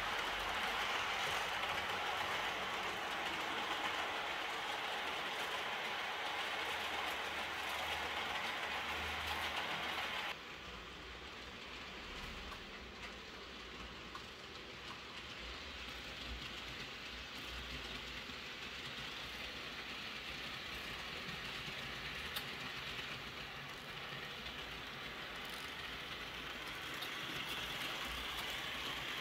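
Model train rolling along its track, a steady rushing rattle of small wheels on the rails. The level drops abruptly about a third of the way in, then slowly grows again as the train comes closer near the end.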